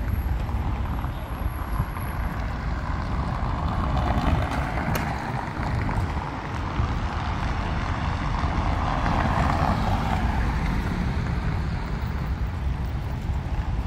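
Outdoor street ambience with wind buffeting the microphone as a low, uneven rumble. Traffic noise swells in the middle and fades again.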